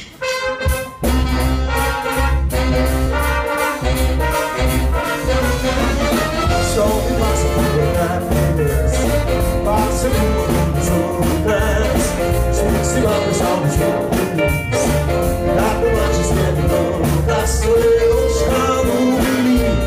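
Live big band playing a jazz song with brass, saxophones, double bass and drum kit, and a male singer singing through the PA; the band comes in together about a second in after a few clicks.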